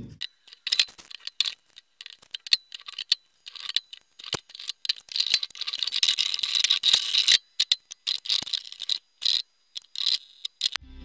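Small wooden trim blocks and a bar clamp being handled and clamped on a wooden plank: irregular close clicks, knocks and rattles, coming thickest a few seconds past the middle.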